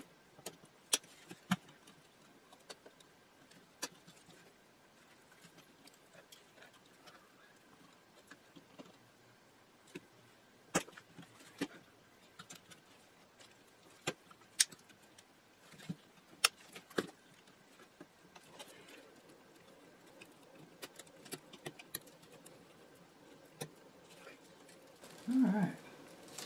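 Scattered sharp clicks and taps of a hand tool working at a metal speaker grille plate, breaking up the melted plastic stakes that hold the grille on.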